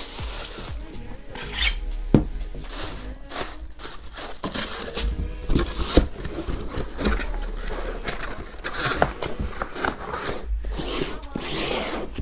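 Cellophane bag crinkling and cardboard packaging rustling and sliding as a car midrange speaker is unpacked, with sharp knocks about two seconds in and again about six seconds in.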